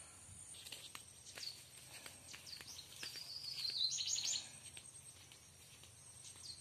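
Forest birds chirping in quick rising and falling notes, loudest about three to four seconds in, over a thin steady insect whine. Scattered light crackles of footsteps on dry leaves run through it.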